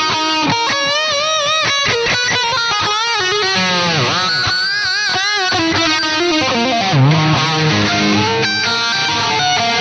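Distorted EVH Striped Series electric guitar played through a Line 6 Amplifi 75 amp on a high-gain 'brown sound' preset. It plays fast lead runs with wide vibrato and bends, and the pitch swoops down and back up about four and seven seconds in.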